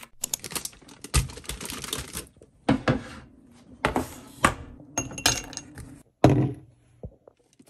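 Ice cubes crackling as they are twisted loose from a plastic ice cube tray, then a series of separate clinks and knocks as cubes drop into a glass, with a heavier thunk about six seconds in.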